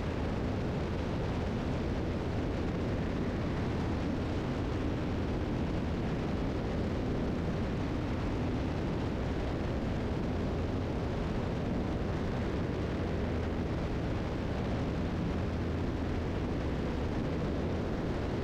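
Cabin drone of a 1981 Piper Seneca III's twin turbocharged piston engines at climb power just after takeoff: a steady, even hum with low engine tones under a wide hiss.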